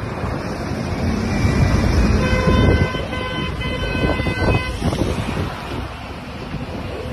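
Street traffic rumbling with wind buffeting the microphone. A vehicle horn sounds one long steady blast starting about two seconds in and lasting about two and a half seconds.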